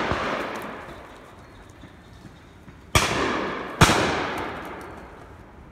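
Two shotgun shots on a game shoot, about a second apart, each with a long echoing tail. At the start, the echo of an earlier pair of shots is still dying away.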